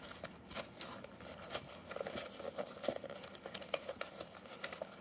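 A hand rummaging through foam packing peanuts in a cardboard box: an irregular run of quick rustles, scratches and small clicks as the foam pieces rub against each other and the box, with a few brief squeaks in the middle.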